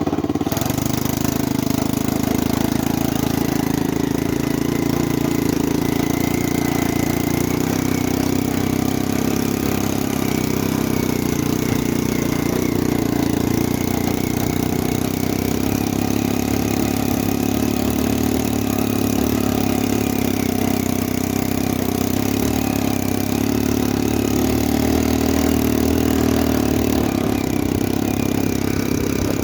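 Quad bike (ATV) engine idling steadily, without revving.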